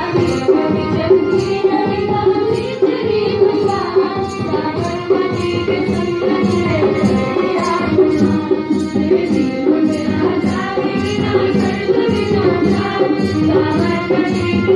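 Schoolgirls singing a song through a public-address system, accompanied by drums beating steadily about twice a second.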